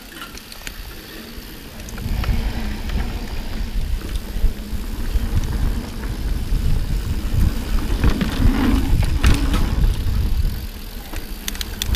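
Mountain bike ridden fast on a dirt trail: a loud low rumble of wind and tyre noise with rattles and clicks from the bike, setting in about two seconds in and easing off briefly near the end.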